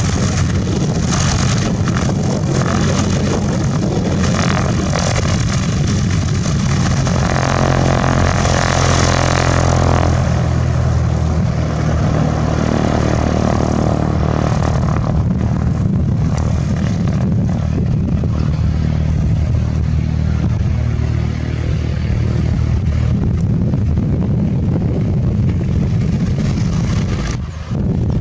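Embraer EMB-712 Tupi's four-cylinder Lycoming O-360 engine and propeller at full takeoff power for a short-field takeoff in strong wind: a loud, steady drone with a rushing noise over it, strongest a quarter of the way in.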